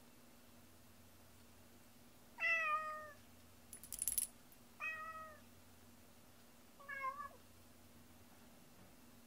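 A cat meows three times, short calls that each fall a little in pitch, with a brief metallic jingle between the first two.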